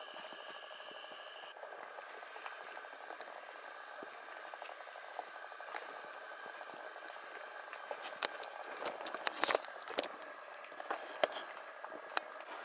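Rainforest ambience: a steady insect chorus of several high, held buzzing tones, which changes pitch makeup about a second and a half in. From about eight seconds in, a cluster of sharp crackles and snaps from footsteps through leaf litter and twigs on the trail.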